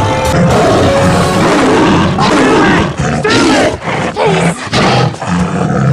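Roars and snarls of a Smilodon, a sabre-toothed cat, as a dramatised creature sound effect: a run of harsh roars that bend in pitch, starting about a second in and coming several times with short breaks between them.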